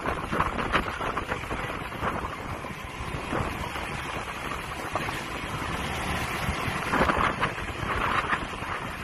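Wind buffeting the microphone of a moving motorbike, over the noise of its engine and the surrounding street traffic, swelling for a moment about seven seconds in.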